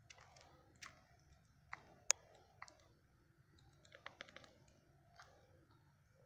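Faint, scattered sharp clicks and ticks. The sharpest comes about two seconds in, and a quick run of them comes around four seconds in.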